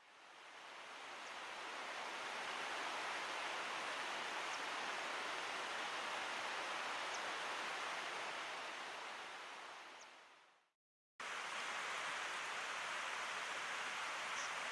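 Steady rushing noise of water. It fades in and fades out, stops dead for a moment near the eleven-second mark, then cuts straight back in.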